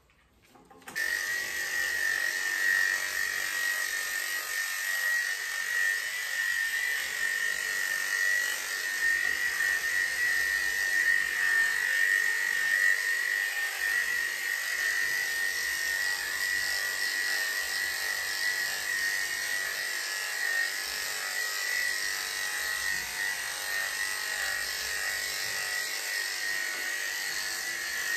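Electric dog grooming clippers fitted with a number 10 blade, switched on about a second in and running steadily with a high-pitched whine while shaving a dog's coat short.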